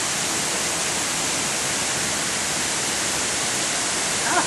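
Ban Gioc waterfall's large falls pouring, a steady, even rush of water. A brief voice sounds near the end.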